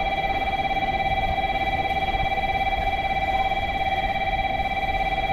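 Station platform train-approach warning: an electronic bell ringing continuously with a rapid fluttering ring, made of several steady high tones.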